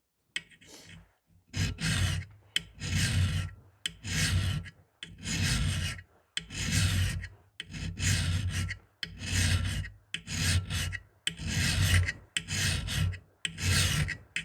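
Hand file rasping along a steel knife spine clamped in a vise, in steady back-and-forth strokes about once a second. The spine is being filed down so it will throw sparks from a ferro rod.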